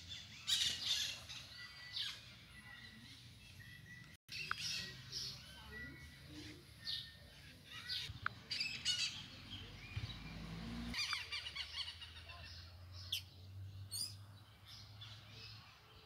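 Wild birds chirping and calling in the trees, a scatter of short, high chirps and trills.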